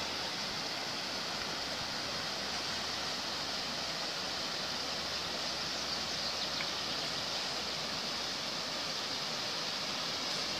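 A mountain river rushing steadily over a rocky bed: an even, unbroken rush of water.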